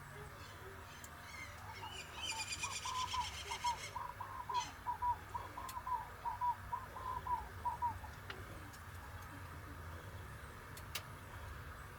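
Birds singing: a fast, high chirping trill, then a run of short repeated notes at about three a second, over a faint steady low hum.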